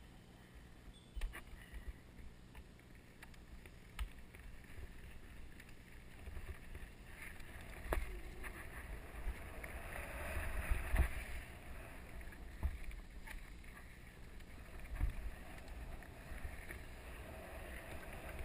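Mountain bike descending a dirt trail, heard from an onboard camera: wind on the microphone and tyres rumbling over the dirt, with a few sharp knocks and rattles as the bike hits bumps. The rumble builds as speed picks up, loudest about halfway through.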